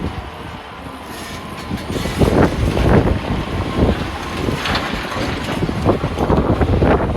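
Heavy wheel loader working rock: a diesel engine rumbling, with irregular crunches and clatter of rocks starting about two seconds in.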